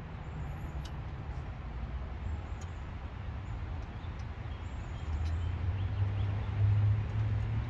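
Low engine rumble of a motor vehicle, growing louder about five seconds in.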